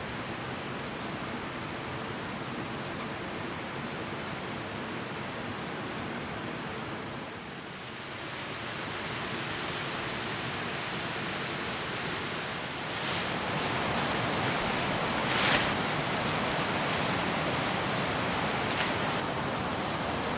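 Steady rushing outdoor ambient noise that dips briefly about a third of the way in and grows louder about two-thirds in, with a few short rustles or knocks near the end.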